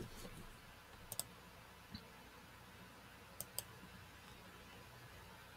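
Faint computer mouse clicks over quiet room tone: a quick pair about a second in, a single click near two seconds, and another quick pair past three seconds, as pattern pieces are dragged around the layout.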